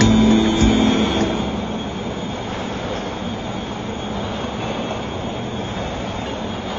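Carousel drive gearing running, a pinion turning against the ring rack, with a steady mechanical rumble. A guitar tune ends about a second in.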